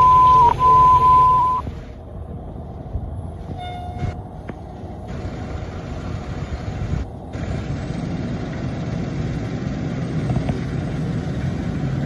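A loud, steady high-pitched radio alert tone that cuts off about a second and a half in. Then a fire ladder truck's diesel engine runs as the truck pulls out of the station, with a brief tone about three and a half seconds in and the engine growing louder toward the end.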